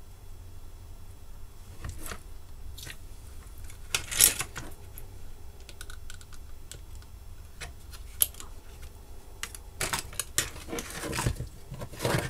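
Scattered clicks, taps and rustles of a toaster's power-supply circuit board being handled on a workbench. There is a louder clatter about four seconds in and a quick flurry of clicks near the end.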